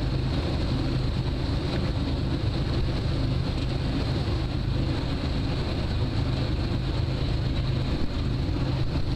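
Passenger ferry's engine running steadily under way, a low drone mixed with the rush of water along the hull and some wind on the microphone.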